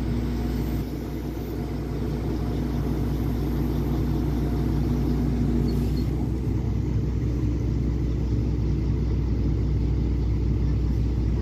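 Crane truck's engine running steadily.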